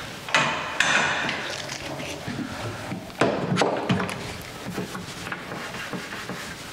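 A few sharp knocks and clicks on wooden cabinet boxes, with some rattling between them, as a squeeze bar clamp is handled and taken off the cabinet face frames.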